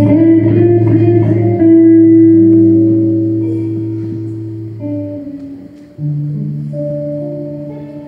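Hollow-body archtop electric guitar playing sustained chords, each left to ring and slowly fade. New chords come in about a second and a half in, near five seconds and again at six seconds.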